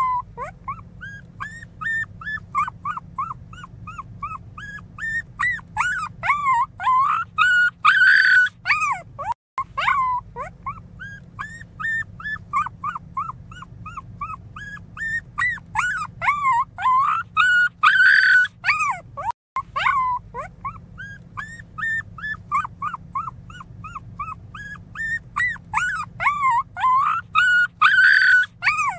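Very young pinscher puppy crying loudly: a rapid string of short, high-pitched whimpers that swells about every ten seconds into louder, drawn-out cries.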